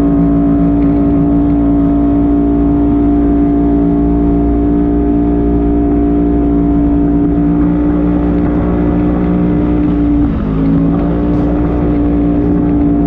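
A motor running at a steady high speed with a constant, buzzing pitch that dips briefly about ten seconds in and comes straight back up.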